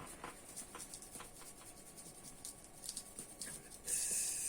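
Light scratching and rubbing on laptop internals being cleaned, with small clicks, then a short hiss about four seconds in.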